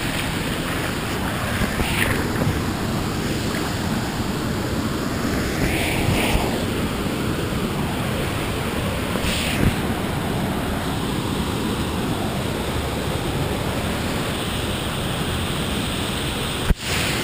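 Waterfall on a creek rushing: a steady, even roar of falling water. It drops out briefly near the end.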